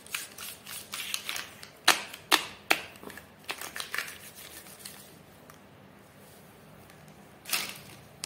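Plastic marker pens clicking and knocking against each other as a hand gathers them up off a paper sheet: a quick run of sharp clicks over the first four seconds, then one more brief clatter near the end.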